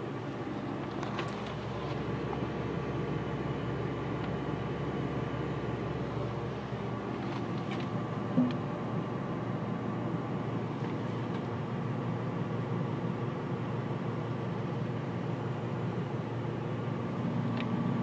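Large mining machine's diesel engine running steadily, a constant hum heard from inside the operator's cab, with one brief short sound about eight and a half seconds in.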